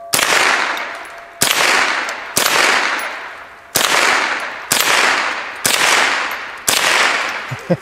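Remington Nylon 66 semi-automatic .22 LR rifle firing seven shots about a second apart, each sharp report trailing off in a long echo.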